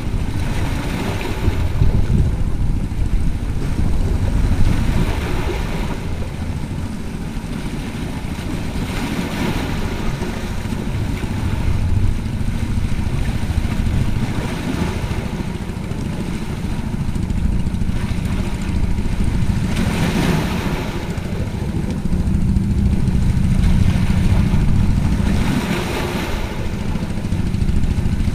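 Small sea waves washing over and splashing against shoreline rocks, a hissy surge every several seconds, over a steady low rumble.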